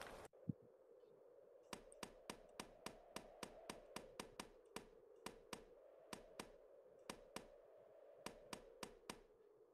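Faint run of sharp taps or clicks, about three to four a second, from near two seconds in to near the end, some coming in pairs, over a low steady hum.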